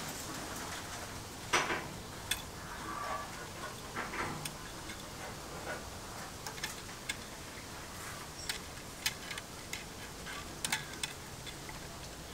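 Irregular small clicks and ticks of fingers handling thin insulated wire against the metal screw terminals of a telephone bell set's terminal strip, over a faint steady hiss. The loudest click comes about one and a half seconds in.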